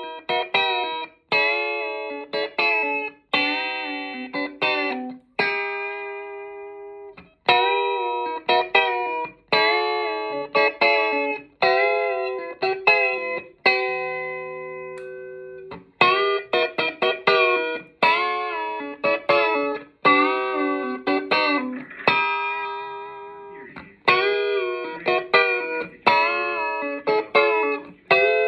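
Amplified 1953-style Telecaster electric guitar played solo: single notes and chords struck sharply and left to ring and fade, with string bends sliding the pitch up and back down. There are short pauses about six and fourteen seconds in.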